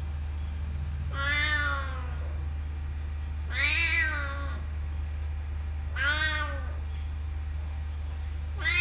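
Young tabby cat meowing three times, about two and a half seconds apart, each call rising then falling in pitch, with a fourth meow starting at the very end. A steady low hum lies underneath.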